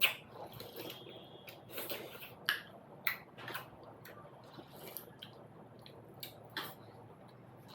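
A person chewing and smacking while eating momo dumplings: irregular wet clicks and squishes.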